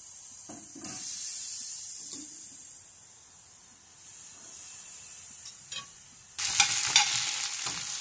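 Pork chops sizzling on a hot gas grill grate as they are laid on with a fork. About six seconds in it changes to louder sizzling of sliced zucchini and onions frying in a cast-iron skillet, with the clicks and scrapes of a utensil stirring them.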